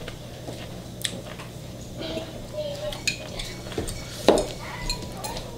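Chopsticks clicking and clinking against a plate and the electric hotpot as noodles are picked up: scattered sharp clicks, the loudest about four seconds in, over a low steady hum.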